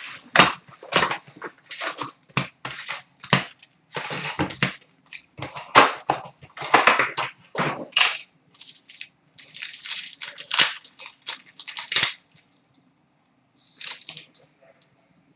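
Masterpieces hockey card packs being handled and torn open: a quick run of sharp crinkling crackles for about twelve seconds, a pause, then one short crackle near the end.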